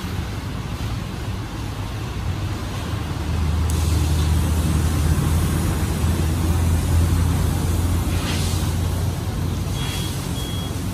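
Car-wash pressure washer running steadily while its water jet hisses against a car's body. The low hum gets louder about four seconds in and eases slightly near the end.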